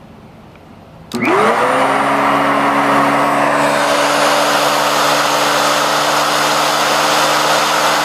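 Kenmore 81414 bagged canister vacuum switched on about a second in: its motor whine climbs quickly to speed, then runs steadily with a rush of air, the PetPowerMate powered brush roll spinning.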